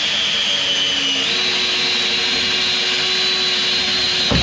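Electric drill boring a hole right through the catamaran's hull at the damaged keel, running steadily under load. Its pitch steps up a little over a second in, and it stops near the end once the bit is through.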